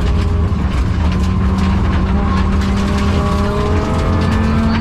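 Rally car engine running hard under load, heard from inside the cabin, over constant gravel and tyre noise with many small stones ticking against the car. The engine has a bad misfire and is down on power.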